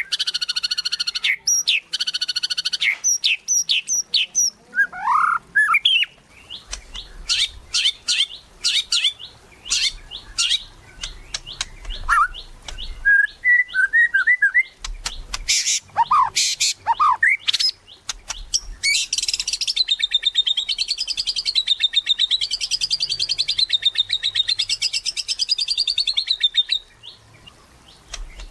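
White-rumped shama (murai batu) singing a varied song of whistled notes and slides mixed with fast rattling clicks. In the second half it breaks into a long trill that wavers up and down in pitch.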